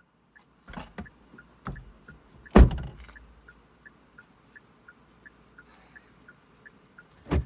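Knocks and thumps inside a car cabin, the loudest a heavy thump about two and a half seconds in and another near the end, over faint quick ticking at about three a second.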